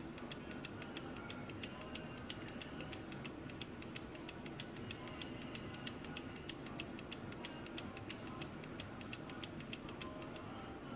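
Old wind-up clock movement ticking at a rapid, even rate after a tap got it going, then stopping near the end. The mainspring is fully wound, yet the movement keeps stalling and will only run briefly after a tap.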